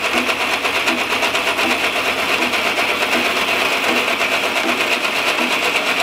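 Hole saw on a drill press turning at 540 rpm, cutting a notch through 1¾-inch chromoly steel tube with penetrating oil on the cut: a steady high-pitched grinding with a fast, even chatter of the teeth.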